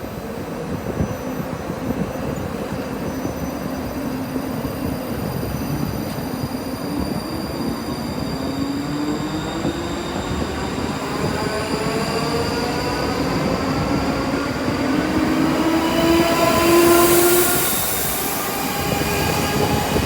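Passenger train pulling away, its drive whine rising steadily in pitch as it gathers speed over the rumble of the wheels on the rails, loudest as it passes near the end.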